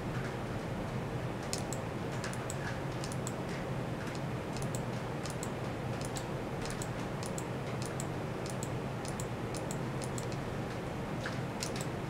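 Short sharp clicks from someone operating a computer's mouse or keys, often in quick pairs at about two a second, starting about a second and a half in, over a steady low hum.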